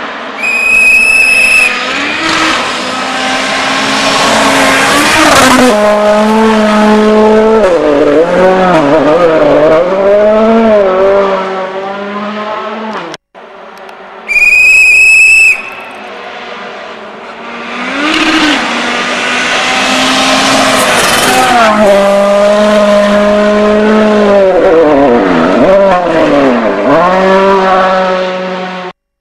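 Two World Rally Cars, each with a 1.6-litre turbocharged four-cylinder, passing one after the other at full throttle on a gravel stage. Each pass is preceded by a short whistle blast. The engine note climbs as the car approaches, then dips and rises again as it goes by, over a hiss of tyres on gravel.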